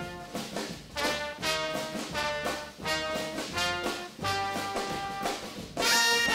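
Background music: a brass-led, jazzy tune in short rhythmic phrases, growing louder near the end.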